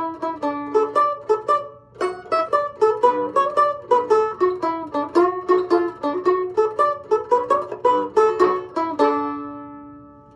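Mandolin-type string instrument built from a Danish cookie tin, playing an improvised tune in quick picked single notes. There is a short break about two seconds in; a final note about nine seconds in rings out and fades away.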